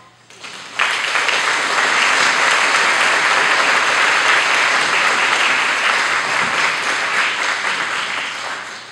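Audience applauding, breaking out about a second in right after the singing ends, holding steady, then thinning out near the end.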